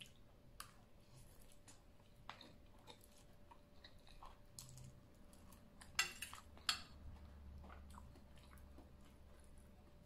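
Quiet, close chewing of a spicy noodle salad made with instant ramen noodles, with soft mouth clicks. About six seconds in, a fork clinks sharply twice against the ceramic bowl.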